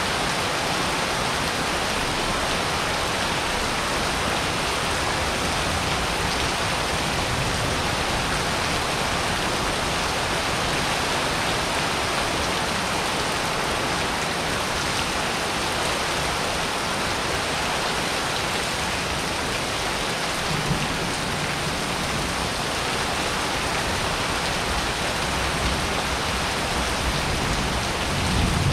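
Steady rain pouring onto a wet paved yard and patio roof during a thunderstorm. A brief low rumble of thunder comes about two-thirds of the way through, and another near the end.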